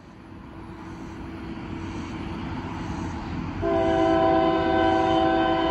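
Union Pacific freight locomotive approaching, its rumble growing steadily louder, then about three and a half seconds in its air horn sounds a long, loud chord for a grade crossing.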